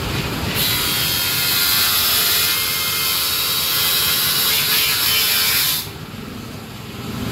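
Table saw cutting through an acrylic sheet: a loud, even hissing cut begins about half a second in and stops near six seconds. The saw then runs on more quietly with the blade free.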